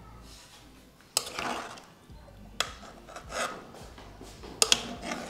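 A metal spoon scraping and knocking against a steel pot and a wooden bowl as boiled potato and tomato pieces are lifted out: a sharp knock about a second in, another past halfway, and a quick double knock near the end, with soft scraping between.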